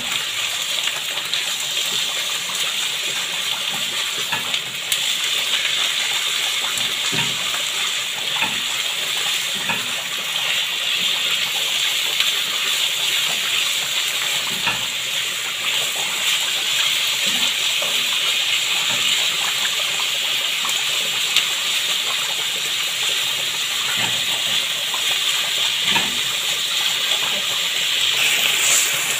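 Beef and onions sizzling steadily in hot oil in a frying pan.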